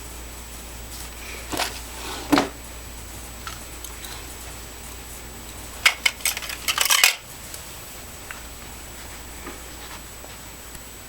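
Metal handcuffs clinking and rattling as they are worked at with a paperclip: a couple of clicks about two seconds in, then a quick flurry of clinks about six to seven seconds in.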